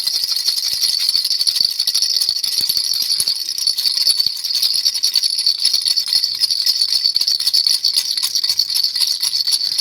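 Baby rattle shaken without pause: a dense, fast jingling with a steady high ringing.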